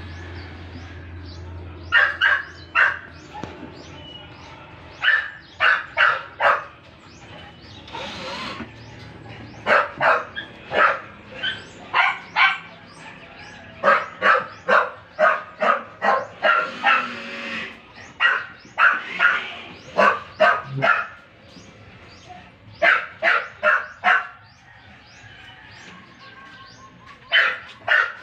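A dog barking in quick runs of three to five barks, about a dozen runs with short pauses between.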